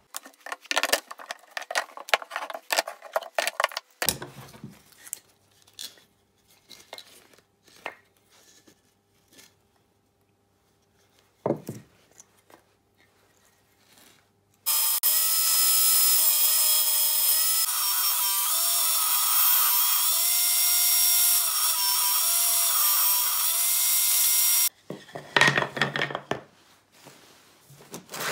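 Wood and a bar clamp being handled, with a run of clicks and knocks. Then an electric power tool runs for about ten seconds, cutting wood, its whine dipping in pitch several times under load; it starts and stops abruptly. Near the end, wooden strips clatter against one another on a table.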